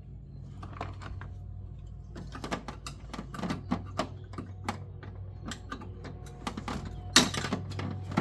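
Plastic pop clips being pried out of the console trim with a trim tool: a run of sharp clicks and ticks, with one louder snap about seven seconds in.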